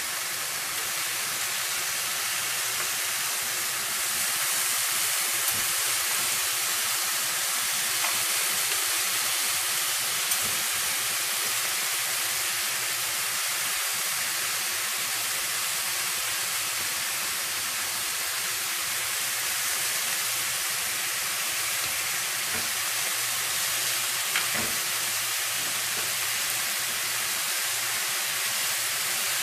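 Chicken and vegetable kebabs sizzling in a hot ridged grill pan, an even frying hiss, with a few faint clicks as the skewers are turned with tongs.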